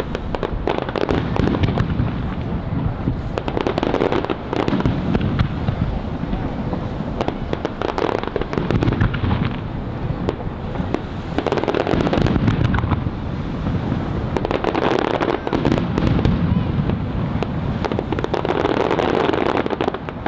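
Fireworks shells bursting over the sea in quick succession: a continuous barrage of booms and crackles, swelling in waves every few seconds, echoing off the hills around the bay.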